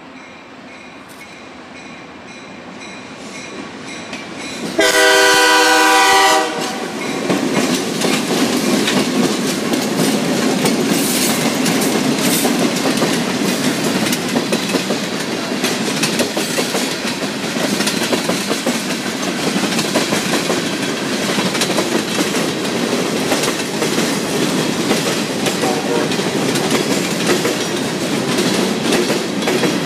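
Diesel locomotive 414 approaching, then one short blast of its newly fitted multi-chime air horn about five seconds in. The train then rolls past, with wheels clicking over the rail joints.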